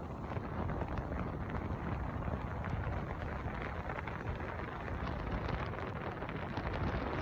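Wind buffeting the microphone over a steady rushing noise, with fine crackles throughout.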